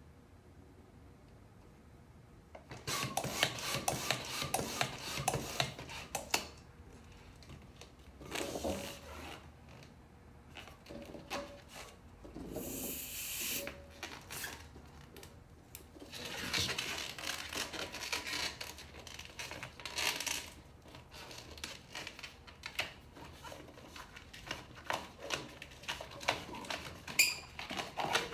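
Hand balloon pump inflating a latex twisting balloon, starting about three seconds in with scratchy pump strokes and rushing air. This is followed by hands handling and rubbing along the inflated balloon.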